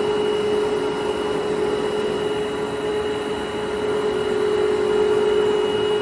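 Jinling 25180G gap bed engine lathe running with its spindle at 132 RPM: a steady machine hum with a constant mid-pitched tone and a fainter high whine.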